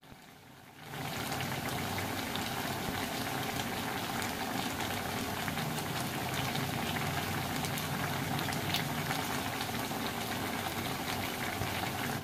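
Pot of pinakbet vegetable stew simmering on the stove: steady bubbling with many small pops and crackles, fading in about a second in.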